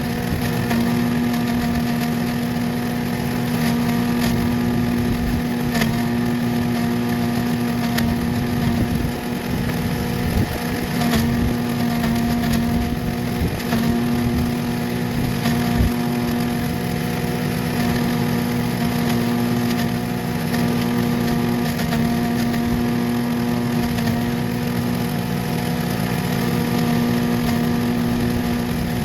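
MTD chipper/shredder's small gas engine running steadily at constant speed while shredding oak leaves, with scattered sharp ticks through the run.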